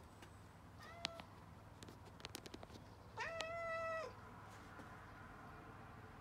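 Domestic cat meowing twice: a short meow about a second in, then a longer, louder meow held for almost a second at about three seconds, with a few soft clicks in between.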